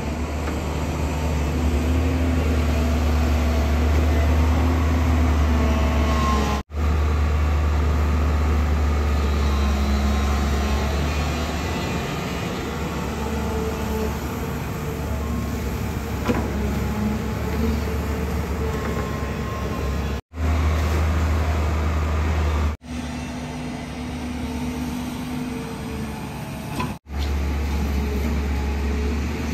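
JCB JS205 crawler excavator's diesel engine running under hydraulic load while its bucket digs and lifts wet sand, the engine's pitch rising and falling with the work. The sound drops out briefly a few times.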